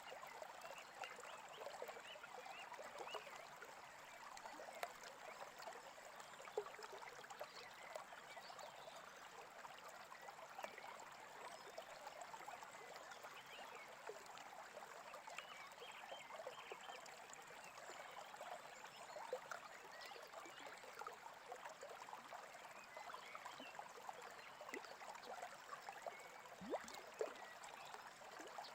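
Faint, steady babbling and trickling of a small stream.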